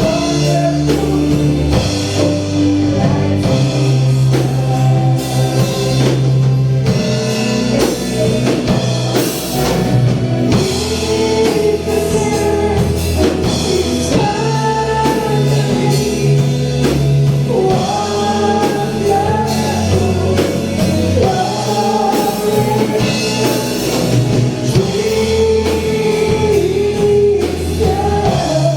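Praise and worship song: singing over a band with a steady beat and sustained bass notes.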